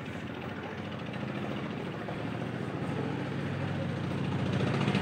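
A steady low engine hum with a noisy rush over it, slowly growing louder toward the end.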